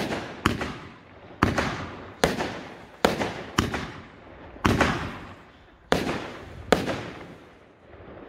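Aerial fireworks bursting overhead: about nine sharp bangs, irregularly spaced, each trailing off in a fading rumble, thinning out near the end.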